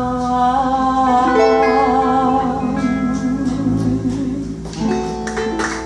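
Live band playing the closing instrumental bars of a slow blues number: guitar chords under long held notes with vibrato, moving to a last chord about five seconds in.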